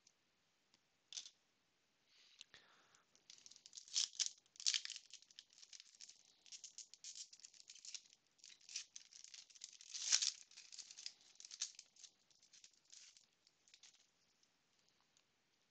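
Foil wrapper of a Panini Prizm basketball card pack crinkling as it is torn open, a dense crackle that swells twice, then fades to light ticks as the cards are slid apart.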